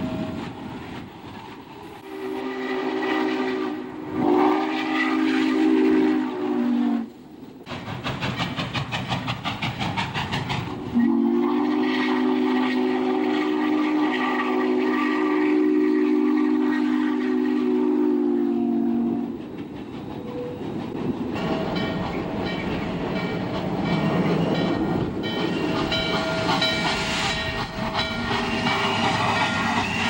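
Steam locomotive chuffing at a steady beat while blowing its whistle: a blast of about five seconds a couple of seconds in, then a longer blast of about eight seconds from about eleven seconds in.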